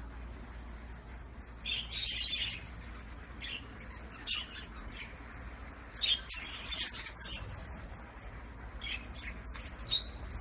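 Small cage birds chirping in short, scattered bursts, the busiest about two seconds in and again around six to seven seconds, over a low steady hum.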